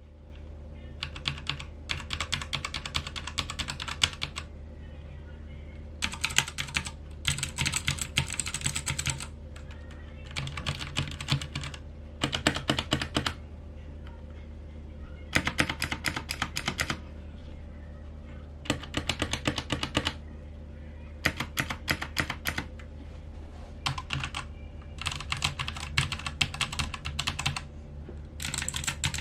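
Typing on a Royal Kludge RK68 mechanical keyboard: bursts of rapid key clicks lasting a second or two, with short pauses between them, over a steady low hum.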